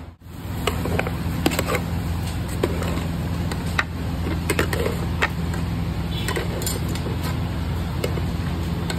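A flat metal blade clinking and scraping against a steel karahi pan as the cooked meat is tipped out onto a plate, in scattered sharp clicks over a steady low hum.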